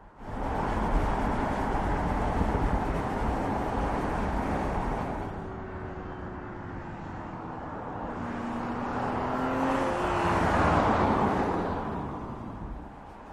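Audi S5 Sportback driving past on the road, a mix of tyre and engine noise. It eases off midway, then swells again as the car approaches, with the engine note climbing, and is loudest just before the car passes and fades away near the end.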